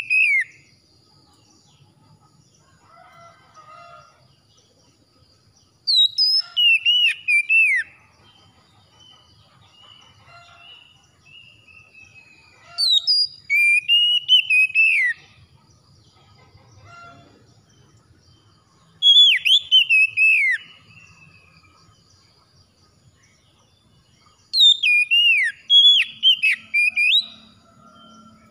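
Male Oriental magpie-robin singing loud whistled phrases of twisting, gliding notes. There are four song bursts a few seconds apart, the last and longest near the end, with quiet pauses between them.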